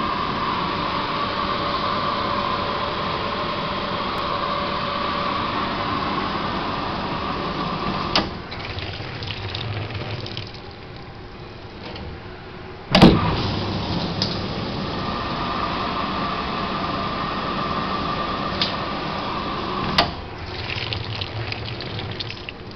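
Commercial dishwasher running its wash pump, with water spraying steadily inside. The spray stops with a click about eight seconds in and water trickles. A heavy thump about thirteen seconds in is followed by the spray running again. It stops with another click near the end, leaving dripping.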